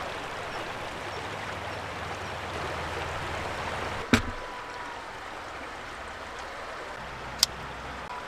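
Shallow stream running over pebbles, a steady rush of water. About four seconds in it gives way to one sharp knock, an apple set down on a wooden cutting board, followed by a quieter stretch and a small click near the end.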